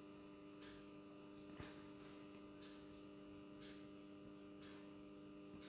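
Near silence: a faint steady hum, with one light click about one and a half seconds in.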